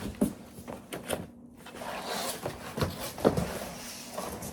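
A large cardboard shipping box and its packing being handled: several knocks and thumps with rustling between them, the loudest a little past three seconds in.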